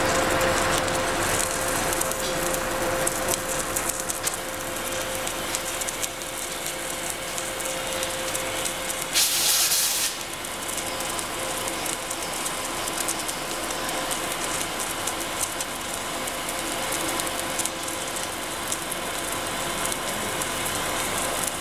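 Automated arc welding on a Kistler welding machine: a steady crackling hiss as the torch runs along the seam of a turning lobster-tail pipe elbow, with a steady hum underneath. About nine seconds in, a louder burst of hiss lasts under a second.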